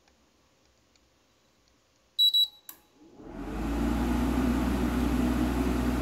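The Hisense portable air conditioner gives two short beeps and a click, then its compressor kicks in about three seconds in. The compressor starts with a rising low hum and settles into a steady buzzing run, showing it now starts properly on its newly replaced capacitor.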